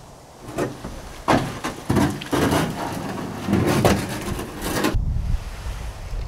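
Jon boat hull being dragged over dry grass and dirt, scraping in a series of rough pulls that stop about five seconds in.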